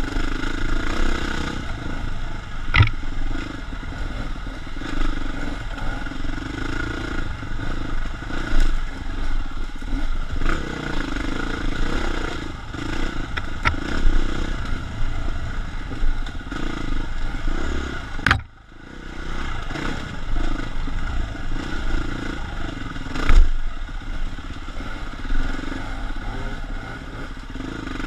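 KTM 350 dirt bike's single-cylinder four-stroke engine running under changing throttle, with clattering and scraping from the bike over rough ground and brush. Sharp knocks come about three, eighteen and twenty-three seconds in, and the engine sound drops away briefly right after the one at eighteen seconds.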